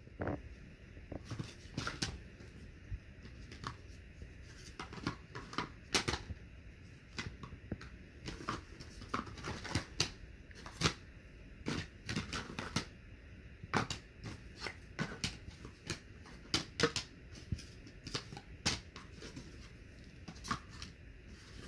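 Cardboard puzzle pieces being handled, shuffled and dropped in a cardboard box: many small irregular taps and rustles.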